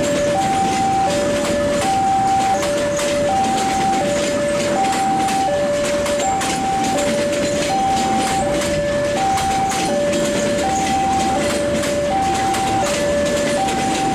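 Railway level-crossing alarm sounding an even two-tone chime, alternating high and low about every three-quarters of a second. Under it, a passenger train rolls past with a rumble of wheels and the clatter of rail joints.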